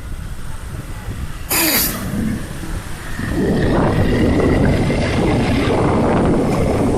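Road traffic noise: vehicle engines running close by, with a brief loud rush of noise about a second and a half in and louder, rougher noise from about three seconds on.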